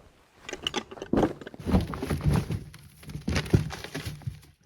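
Irregular thumps and scraping as a large incense cedar log with loose bark is rolled across a frosty trailer.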